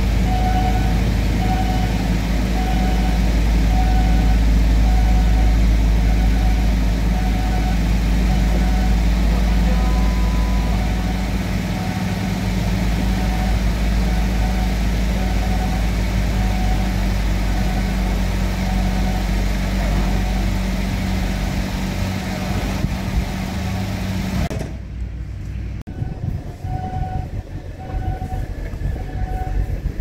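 Railroad crossing alarm dinging steadily, about once a second, over the steady low hum of the engine of the shunting vehicle that moves a passenger railcar slowly across. The engine hum drops away suddenly about 25 seconds in, while the crossing bell keeps on.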